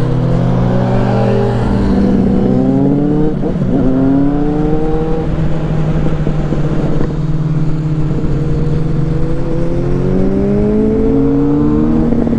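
Motorcycle engine pulling under throttle, its pitch rising in several climbs with a steadier stretch in the middle. Underneath is a steady rush of wind and tyre hiss on the wet road.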